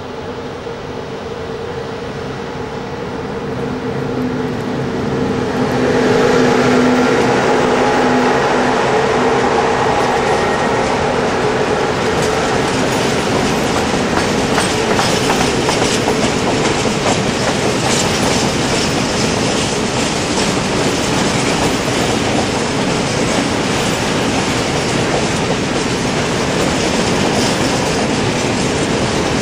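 Romanian 060-EA electric locomotive approaching and passing with a steady hum, growing louder over the first six seconds. It is followed by a long intermodal train of container flat wagons rolling by, their wheels clattering over the rail joints in a steady stream of clicks.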